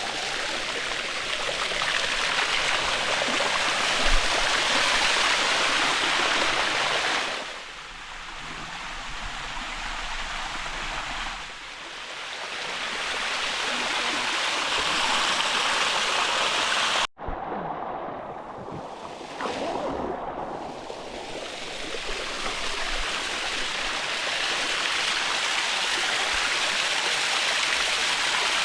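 Waterfall water rushing steadily over the rock cascade. It dips in loudness a few times and cuts out for an instant about two-thirds of the way in.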